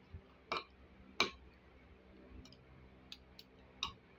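Metal spoon and fork clinking against a ceramic plate while eating rice: about six short, sharp clicks, the loudest a little over a second in.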